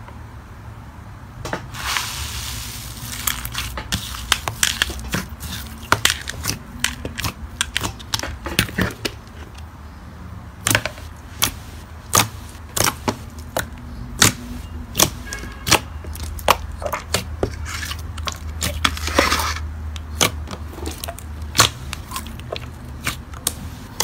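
Slime being kneaded, pressed and stretched by hand, giving frequent sharp pops and clicks at an uneven pace, with a couple of brief crackly stretches, over a low steady hum.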